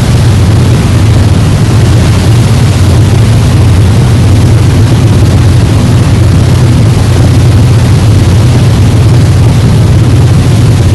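Tourist boat's engine running steadily, a loud, even low drone with a wash of noise above it.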